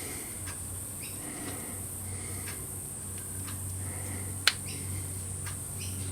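Light scattered clicks and one sharp click about four and a half seconds in, from a rebuilt motorcycle rear brake master cylinder and its parts being handled on the bench, over a steady low hum.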